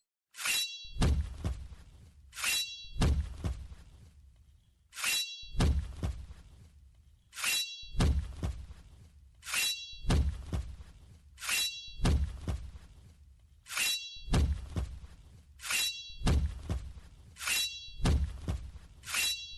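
Metal being struck again and again, mostly two blows at a time about every two seconds, each blow followed by a short metallic ring.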